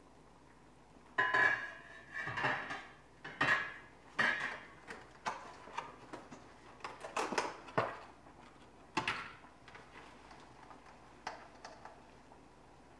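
Stainless steel cooking pot and lid clanking and clinking: a series of sharp metal knocks with a brief ringing tone, loudest over the first few seconds and thinning out after about nine seconds.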